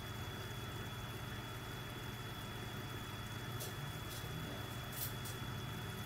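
Aquarium pump humming steadily with a faint high whine, and a few short hissy crackles in the second half.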